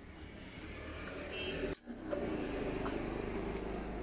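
Faint clinks and knocks of steel gearbox shafts and pinion gears being set into a Yamaha Fazer 125 motorcycle engine's crankcase half, over low steady background noise. The sound drops out briefly just under two seconds in.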